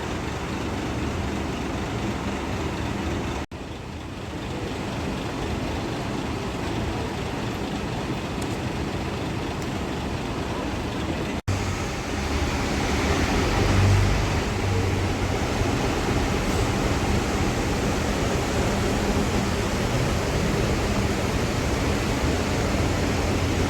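Intercity bus's diesel engine and exhaust running with road noise, a steady low rumble. It is heard in three edited stretches, the last one louder and swelling about two seconds after it starts.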